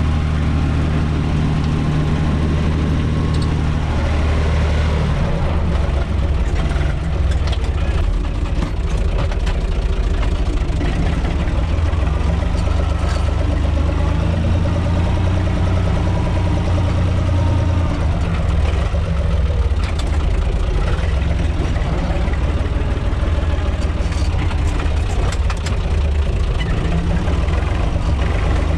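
UTB 445 tractor's diesel engine running steadily, heard from inside its cab. From about five seconds in, the engine sound grows rougher and many short knocks and rattles come through as the tractor drives over the field.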